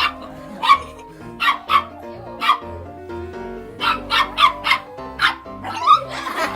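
A dog barking in about a dozen short, sharp barks, some in quick runs, over background music.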